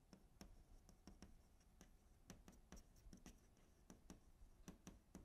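Faint writing sounds: irregular light ticks and scratches, a few a second, over a quiet room hum.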